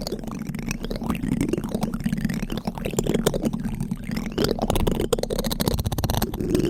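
A spoon scraping over a microphone close up: a continuous run of fine scratches with a heavy low rumble from the contact with the mic.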